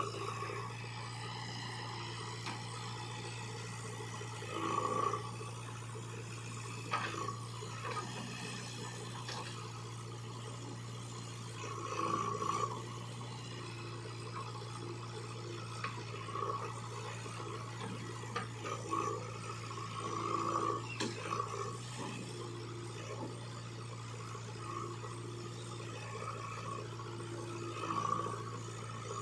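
Heavy diesel machinery running with a steady low drone, the engine note swelling in short louder surges every few seconds.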